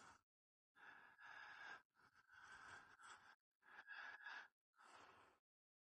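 Near silence, with a few faint soft sounds, about a second and a half in and again around four seconds in.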